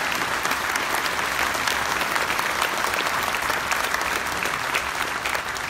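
Large audience applauding, many hands clapping together at a steady level.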